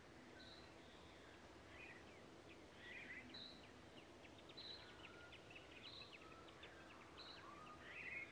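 Faint outdoor birdsong: small birds chirping, with a short high note repeating about once a second and a fast run of ticking notes through the middle, over a low steady hum.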